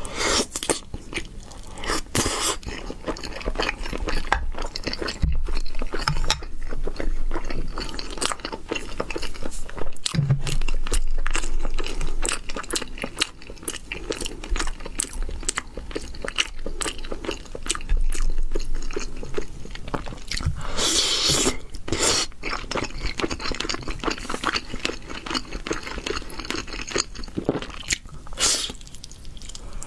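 Close-up eating sounds: a person chewing and biting into sticky, sauce-glazed eel and glazed chicken pieces, with a steady run of wet mouth clicks and crunches. There are a few louder smacks along the way.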